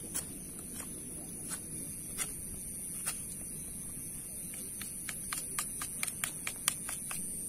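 Large knife cutting into a dry stick: a string of short sharp clicks and snaps, spaced out at first, then coming quicker, about three a second, in the last couple of seconds.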